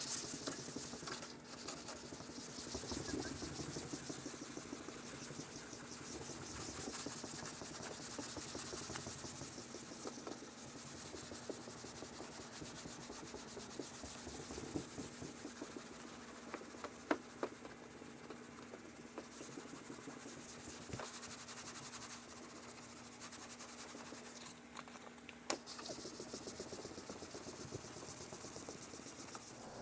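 Sandpaper rubbing over cured primer on a car body panel, a continuous scratchy sanding that levels the primer and scuffs the surrounding paint before the colour coat.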